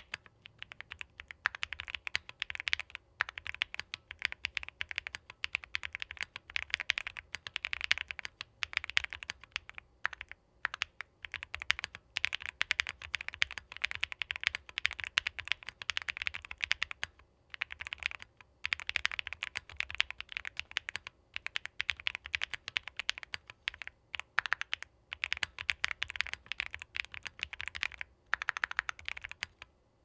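Continuous typing on a KBDfans Tiger 80 mechanical keyboard, with an aluminium case, polycarbonate plate and leaf-spring mount: a dense stream of keystrokes with brief pauses every few seconds.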